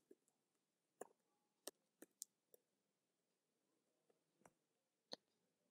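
Near silence broken by a handful of faint, isolated computer keyboard key clicks, spaced irregularly as text is typed into a form.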